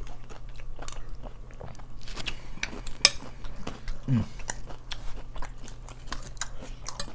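Close-miked crunching and chewing of Flamin' Hot Doritos nachos, irregular sharp chip crunches with the sharpest about three seconds in.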